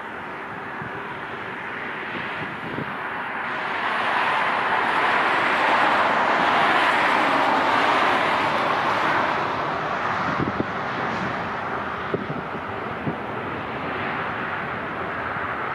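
Jet airliner passing by: its engine rush swells to a peak about halfway through and then slowly fades, with a few short knocks near the end.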